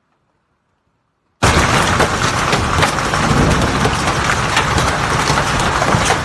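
Near silence, then about a second and a half in, large hailstones hitting hard and fast begin abruptly: countless sharp impacts merging into a loud, steady din.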